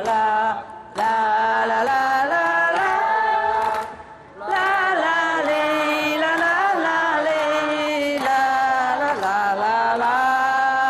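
A woman singing into a microphone, long drawn-out notes that slide slowly in pitch, breaking off briefly twice, about a second in and about four seconds in.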